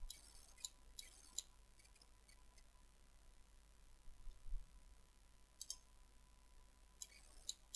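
Near silence broken by a few faint, sharp computer mouse clicks: a few in the first second and a half, a double click a little past halfway, and two more near the end. A faint steady high tone runs underneath.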